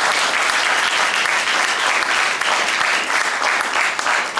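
Audience applauding steadily, welcoming a speaker to the podium.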